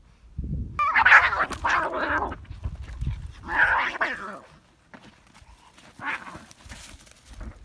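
Cats fighting, letting out harsh screeching cries: two long bursts in the first half and a shorter one about six seconds in.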